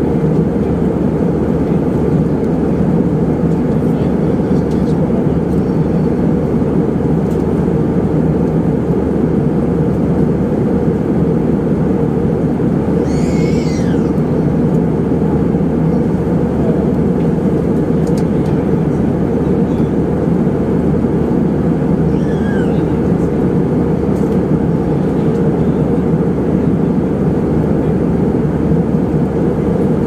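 Steady cabin noise of a jet airliner in flight: the even drone of engines and rushing air heard from a window seat. A brief, faint, high sound falling in pitch comes about halfway through.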